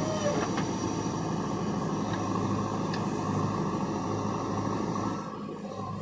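JCB 3DX backhoe loader's diesel engine running steadily under hydraulic load as the arm digs and lifts a bucket of soil, easing off slightly about five seconds in.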